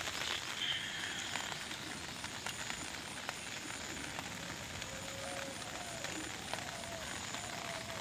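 Light rain falling: a steady hiss of drizzle with scattered small ticks of drops on wet ground and puddles.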